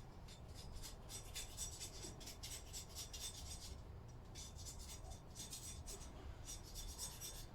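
A blade scraping paint off a metal sealing surface on a Lister D engine, in quick repeated short strokes with a brief pause partway through.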